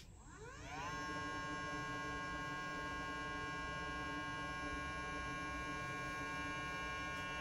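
Milwaukee M12 stick pump's electric motor and impeller spinning up after being switched on, rising in pitch over about a second, then running at a steady, quiet hum. It is running dry on the bench, out of water.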